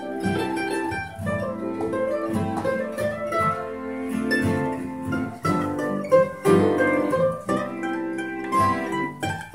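Acoustic guitar picking an instrumental break between sung verses, quick single notes over chords, with no singing.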